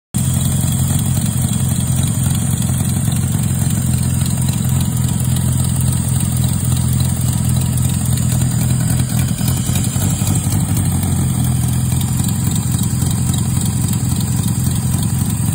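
Turbocharged Toyota 1JZ inline-six engine idling steadily.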